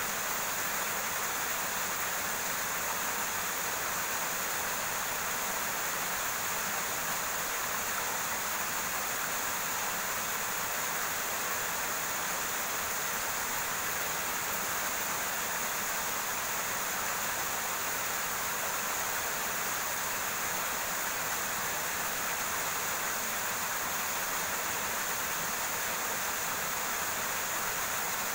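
River water rushing over rocks: a steady, even hiss.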